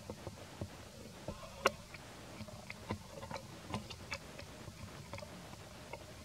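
Scattered faint clicks and ticks, irregular at about one or two a second, the sharpest a little under two seconds in, over a low steady background hiss.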